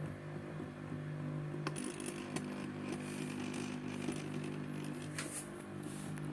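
Small electric motor turning a stopcock valve through 3D-printed gears, a steady hum with a few light clicks around two seconds in and again near five seconds.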